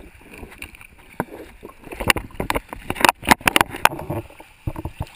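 Sea water sloshing and slapping around a camera floating at the surface, with a cluster of sharp splashes and knocks in the middle.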